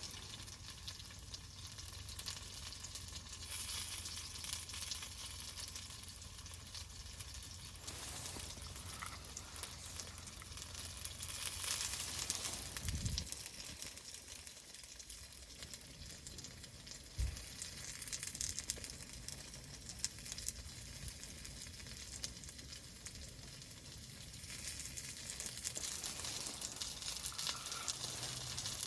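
Food frying in a pan: a steady crackling sizzle, with a couple of dull knocks partway through.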